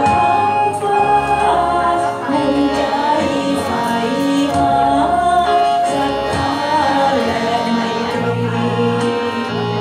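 A woman singing a Thai song into a microphone over a karaoke backing track, her voice amplified through the speakers.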